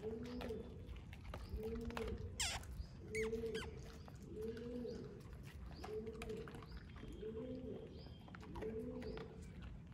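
A bird repeats a low, hooting coo about once a second, with a few sharp chirps from other birds, mainly between two and four seconds in. Short clicks run through it, likely the stray dogs crunching dry kibble.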